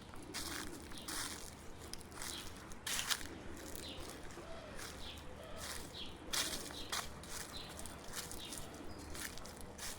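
Footsteps crunching through dry fallen leaves, about one step a second at a walking pace, with a few short bird chirps between them.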